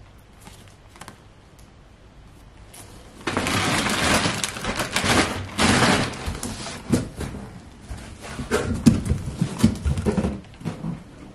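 Plastic packaging crinkling and rustling as plastic-wrapped clothes and a cardboard box are handled, with many small clicks and knocks. It starts about three seconds in, after a quiet start.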